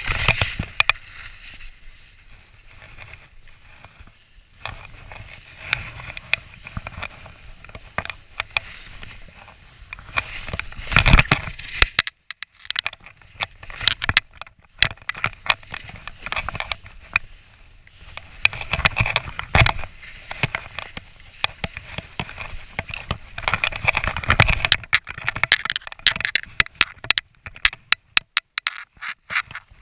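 Skis hissing and scraping through deep powder snow, surging and fading with each turn, mixed with many sharp clicks and knocks that come thick and fast near the end.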